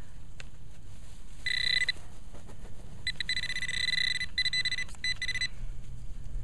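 Metal-detecting pinpointer probe sounding a high, steady beep: one short beep about a second and a half in, then a longer run of beeps broken into shorter pulses from about three to five and a half seconds. The beeping signals a metal target in the dug-up soil.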